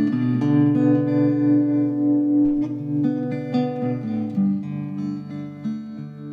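Background music: a guitar piece with plucked and strummed notes, growing quieter over the last couple of seconds.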